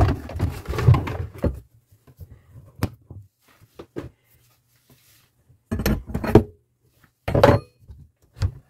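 Intermittent handling noise in a cramped under-sink cupboard: a burst of rubbing and knocking, a couple of single sharp clicks, then two more short bursts of knocks near the end.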